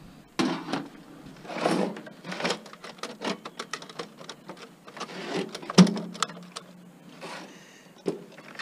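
Small desktop computer case being taken apart by hand: irregular clatter, scraping and knocks of sheet-metal and plastic parts, with one sharper knock about six seconds in.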